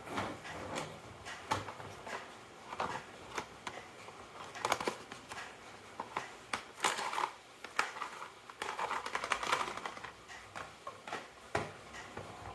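Irregular run of small clicks and knocks, some close together in quick clusters, a few with a short ringing tail.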